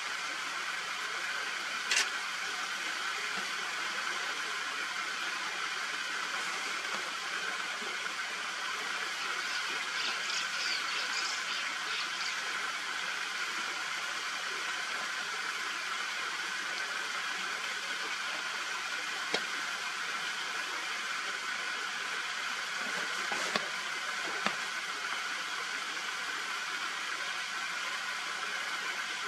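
Steady hissing outdoor background noise, with a few faint sharp clicks and some brief high chirps in the middle.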